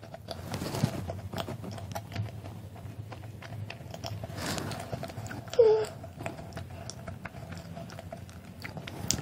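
Chewing a soft, cake-like chocolate pie with a purple filling: wet mouth clicks and smacks. About halfway through there is one brief gliding tone.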